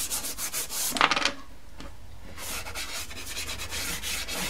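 A hand rubbing soft pastel into toothed pastel paper in quick back-and-forth strokes, blending the sky colour so no paper shows through. There is a louder scuff about a second in, then a quieter stretch before the scrubbing picks up again.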